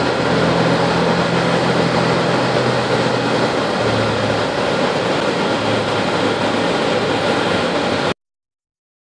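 Steady engine noise from the airport apron around a parked jet at its gate, with a low hum that shifts lower about four seconds in. It cuts off suddenly about eight seconds in.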